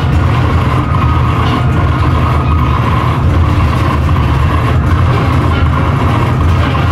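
Loud, steady harsh noise music through a PA: a dense, distorted rumble that is heaviest in the bass, with a harsh hum in the middle and little change.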